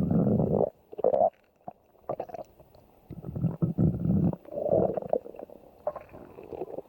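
Stomach growling and gurgling in a run of uneven bursts, some short and some lasting over a second.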